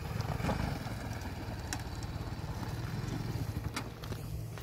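BMW motorcycle engine running at low revs with a steady pulsing rumble as the bike crawls over rocky dirt, with a couple of sharp clicks, once early and once near the end.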